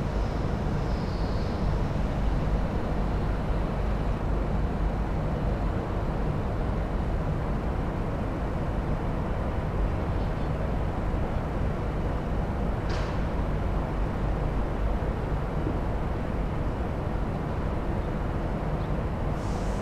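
Distant jetfoil running foilborne at speed: a steady rumble and hiss from its gas turbines and water jets, mixed with wind on the microphone.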